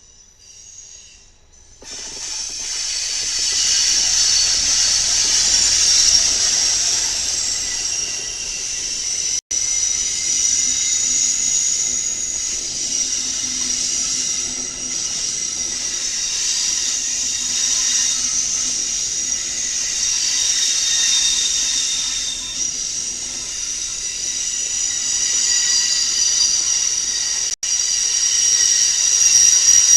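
Train passing close by, its wheels screeching with several steady high squeals over a constant hiss of rolling stock, starting about two seconds in. The sound cuts out for an instant twice.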